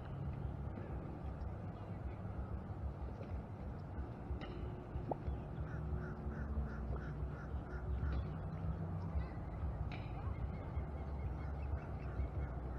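Wind rumbling on the microphone, with bird calls over it: a short call every few seconds and, midway, a run of about six quick, evenly spaced notes.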